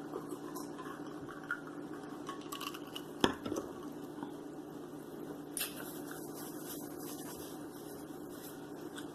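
Light clatter of a plate and cutlery during a meal, with one sharp clink about three seconds in and a few smaller taps. A steady low hum runs underneath.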